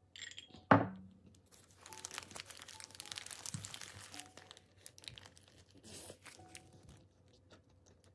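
Paper burger wrapper crinkling and rustling as the burger is held and handled, after one sharp knock just under a second in.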